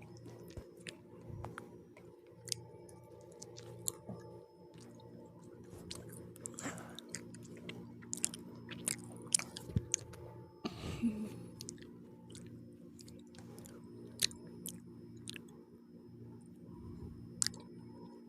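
Close-up chewing of pizza: irregular crunches and wet mouth clicks, with a couple of longer crunchy bites a little before and after the middle.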